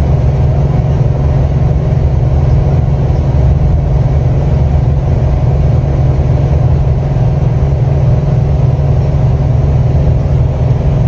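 Intercity bus's engine and road noise heard inside the cabin while it cruises on a toll road: a steady low drone.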